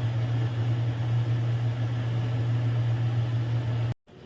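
Steady low hum with an even hiss over it, cut off suddenly near the end. This is the continuous background noise of a kitchen where nimki are being deep-fried.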